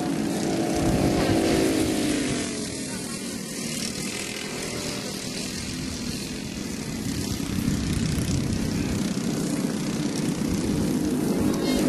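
A pack of racing karts with single-cylinder four-stroke engines (Briggs & Stratton LO206 and clone engines) running at speed. The engine note falls in pitch as the pack goes by in the first two seconds, then settles to a steady buzz that grows louder again from about eight seconds in as karts come closer.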